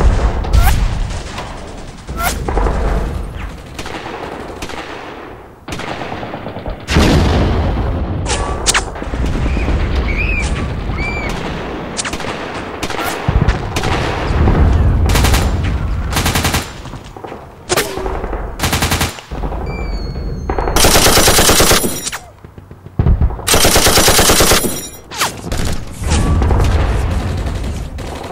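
Movie-style gunfire sound effects: scattered single shots and short bursts, then two long bursts of rapid automatic fire about three quarters of the way in, over low booming rumbles.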